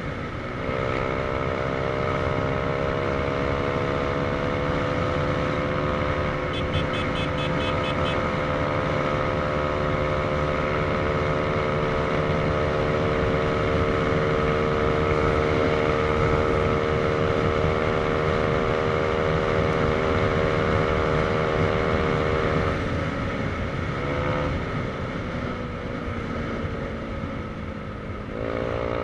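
Motorcycle engine running on the road, with wind and tyre noise; its pitch climbs slowly as it pulls at speed, drops when the throttle is closed about three-quarters of the way through, blips once, sinks as the bike slows, then rises sharply again near the end.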